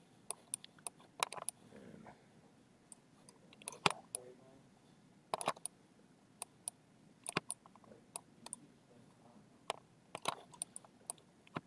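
Quiet, irregular clicks of a computer mouse as a 3D scan is dragged and rotated on screen, with a few louder clicks spaced a second or two apart.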